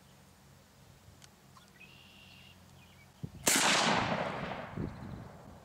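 A single shot from a Mossberg 500 12-gauge pump shotgun firing a 1 oz slug, about three and a half seconds in: a sharp, loud blast whose echo fades out over about two seconds.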